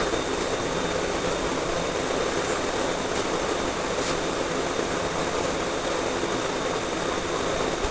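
A steady rushing noise with a thin, high, constant whine above it and a few faint clicks.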